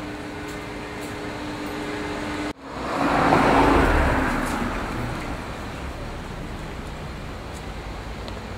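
A road vehicle passing close by: the sound swells about three seconds in and fades away over the next two seconds. It is heard against a steady street background, after a brief cut-out in the sound.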